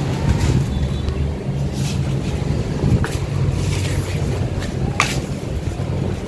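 Steady low rumble, with a few sharp clicks about two, three and five seconds in.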